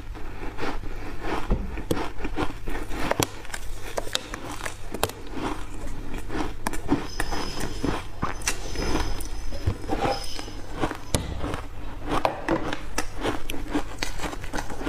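Refrozen block ice coated in matcha powder being bitten and chewed, a fast, irregular run of sharp crunching cracks.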